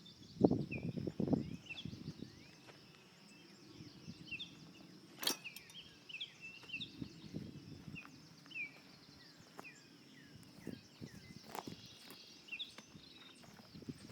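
Small birds chirping in bush, with short downward chirps repeated every second or so over a steady high hiss. A few low thumps and rustles, loudest near the start, and one sharp click about five seconds in.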